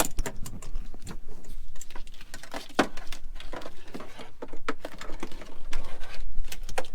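Irregular clicks, taps and light rattles of a cable and its plug being handled and fitted at a tractor cab's back window.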